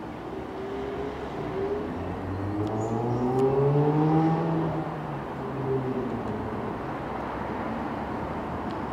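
Underfloor diesel engines of a pair of Class 221 Super Voyager units approaching at low speed: the engine note rises in pitch, is loudest about four seconds in, then eases off and drops, over a steady rumble.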